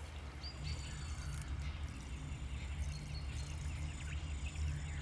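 Background ambience of a steady low hum with small birds chirping high above it in short, quick notes.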